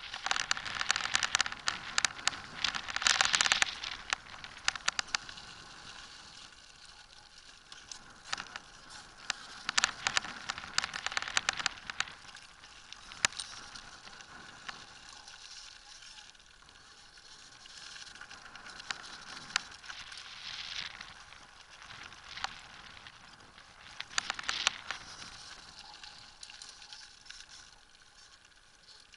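Wheels of a land-sailing rig rolling over gritty pavement, picked up by a camera fixed to the rig as a steady crackling rattle, louder in several stretches.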